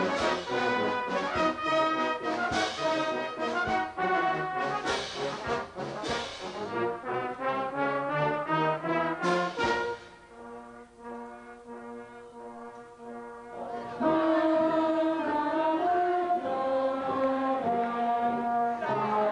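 Brass band playing live: loud full chords punctuated by sharp accented hits for the first half, a quieter held chord about two-thirds of the way through, then a louder sustained melody near the end.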